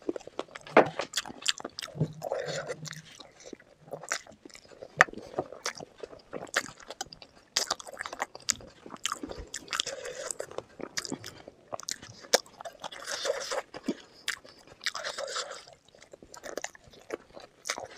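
Close-miked eating of chicken feet curry and Maggi noodles: biting, crunching and chewing, with many sharp crackles and short bursts of noisier mouth sounds every few seconds.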